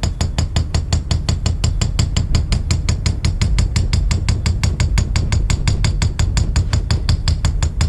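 Hammer tapping lightly and rapidly around the edge of masking tape on a metal axle hub, about eight taps a second, to cut the tape to a clean edge.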